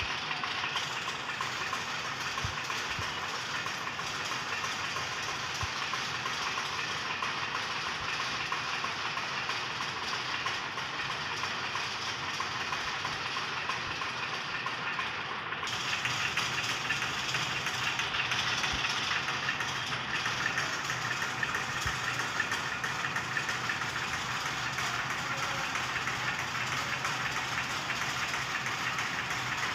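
Sectional warping machine running steadily, its drum unwinding nylon warp yarn onto a weaver's beam: a continuous mechanical clatter and hum that gets a little louder about halfway through.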